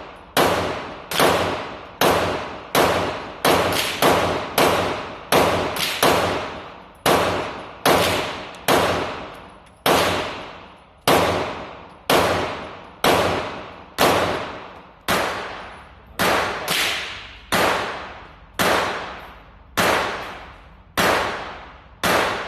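A steady string of gunshots, roughly one every 0.8 seconds with no pause, each shot ringing out and fading over most of a second.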